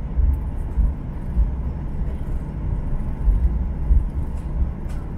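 Cabin noise of a Boeing 737-800 taxiing: its CFM56 jet engines at low thrust under a low, uneven rumble from the airframe rolling along the taxiway. A couple of faint clicks come near the end.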